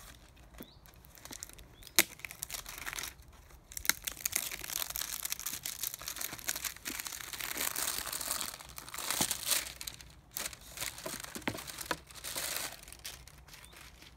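Cardboard box and plastic packaging being handled and unpacked: plastic crinkling and rustling in irregular bursts, with scattered clicks and knocks, the sharpest about two seconds in.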